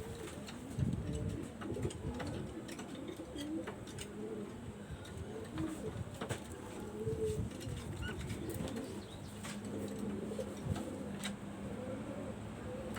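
Pigeons cooing over one another, with scattered light clicks and chirps.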